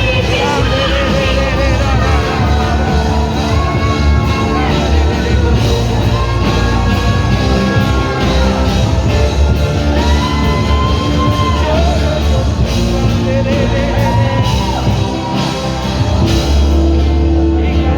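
Live church worship band playing, with drums and bass under sung notes held for a second or more at a time.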